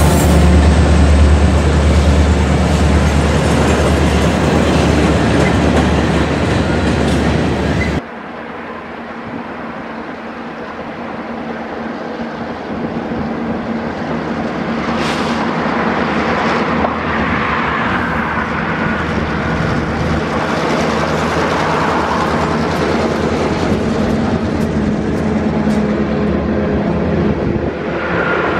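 Union Pacific freight train passing close, with a heavy low rumble from its diesel locomotive and rolling cars. About eight seconds in it gives way abruptly to an Indiana Harbor Belt freight: the EMD diesel locomotive's sound builds as it approaches, then covered hopper cars roll past with sharp wheel clicks on the rail joints.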